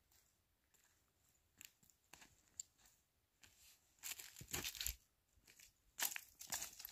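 Footsteps crunching on dry fallen leaves and loose stones: a few faint scattered crackles at first, then a run of crunching steps about four seconds in and again near the end.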